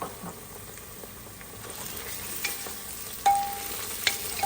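Onions with ginger-garlic paste and green chillies frying in ghee, sizzling more loudly from about halfway through while being stirred. The stirring knocks against the pot a few times, with one loud ringing clank about three seconds in.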